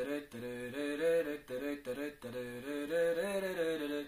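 A man singing unaccompanied: a run of short sung syllables that step up and down in pitch, with a longer held note rising near the end.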